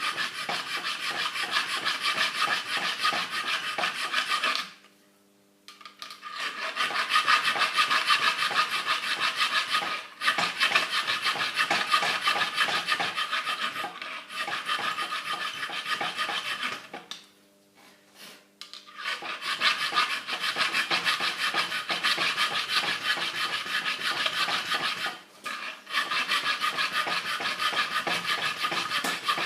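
Round file rasping back and forth on the steel jaws of a pair of end cutters, in quick, continuous strokes with two brief pauses, grinding out the inside of the jaws to round it off.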